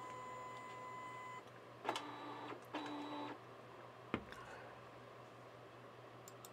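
Epson DS-510 sheet-fed document scanner scanning a trading card. A steady high whine stops about a second and a half in, then the feed motor runs twice, briefly, as the card passes through the rollers, and a sharp click follows at about four seconds.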